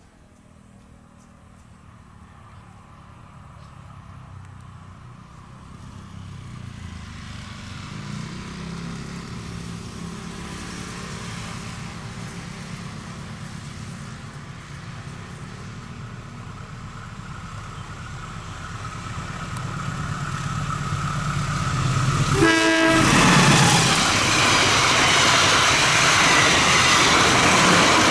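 A diesel locomotive approaching at speed, its engine hum growing steadily louder. It passes close by about 23 seconds in, followed by the loud, steady rush of the train's cars going past.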